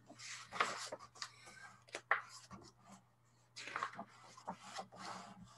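Pages of a hardcover picture book being turned and handled, giving several bursts of paper rustling, the longest about three and a half seconds in.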